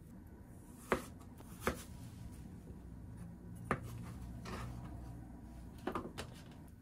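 Kitchen knife cutting cucumber on a plastic cutting board: a handful of separate sharp knocks as the blade hits the board, about two in the first couple of seconds, one in the middle and two close together near the end.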